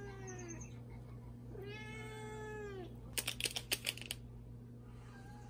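A house cat meowing for its food: a short falling meow, then a longer one about two seconds in. Just after, a quick run of sharp clicks as a spoon knocks against the ceramic bowls of wet cat food being dished up.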